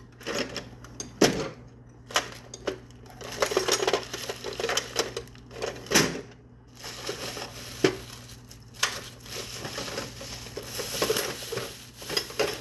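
Loose metal hand tools clinking and clattering as they are rummaged through, with irregular knocks and rattles; the sharpest knocks come about a second in and around six and eight seconds.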